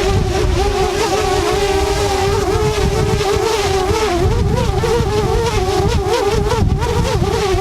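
DJI Mavic Air quadcopter's propellers buzzing in flight, the pitch wavering up and down as the motors fight strong gusts. Wind rumbles on the microphone underneath.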